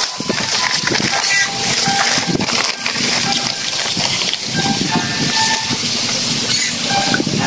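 A fire of dry leaves burning, with steady hissing and scattered crackles, as the flames flare up. Short chirps sound through it now and then.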